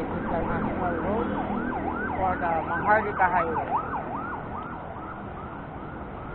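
A siren yelping, a quick rising-and-falling wail repeating a few times a second over steady traffic noise; it grows fainter in the last couple of seconds.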